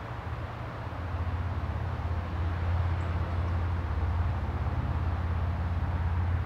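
A steady low mechanical rumble, swelling about a second in and then holding steady.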